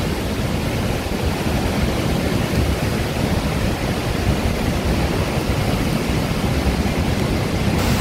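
Calandula Falls, a large waterfall, sounding as a steady, even rush of heavy falling water, strongest in the low end.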